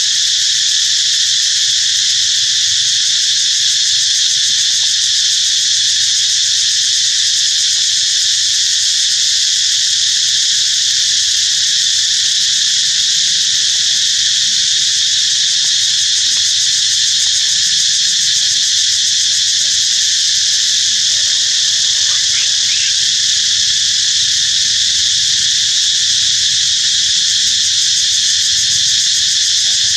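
Insect chorus: a loud, steady, high-pitched buzzing drone that does not change.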